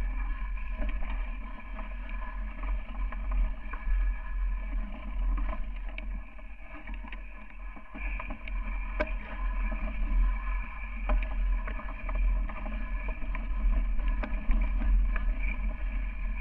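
Mountain bike ridden over a rough dirt singletrack, heard through a bike-mounted action camera: a heavy low rumble of wind and jolting on the microphone, with scattered clicks and knocks from the bike over bumps and a steady high whine underneath.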